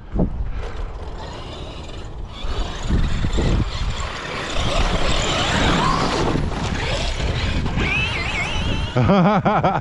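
A motor running, its pitch wavering quickly up and down and loudest about a second before the end, where it cuts off.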